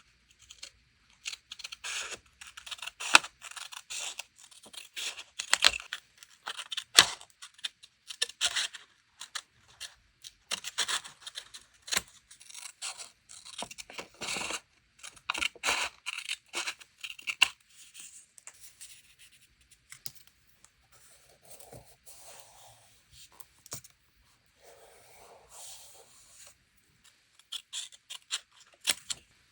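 Paper being handled for journal crafting, cut and torn: a dense run of crisp crackles and snips for the first two-thirds or so, then softer, sparser rustling and rubbing, with a few sharp clicks near the end.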